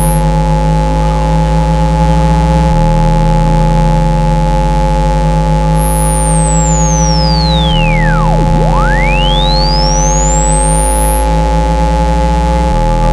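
Synthesized water-ejection tone for clearing water from a phone speaker: several steady pure tones layered over a bass tone that changes pitch about every five seconds. A single sine sweep falls from very high to very low a little past the middle, then rises again.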